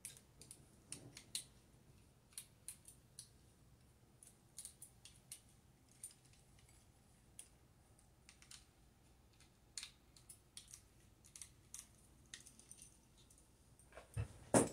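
Faint, irregular small metal clicks and taps as the screws holding a Videojet DataFlex Plus 6420 printer's printhead carriage block are worked out with a hand tool, with a louder knock near the end as the block is lifted off.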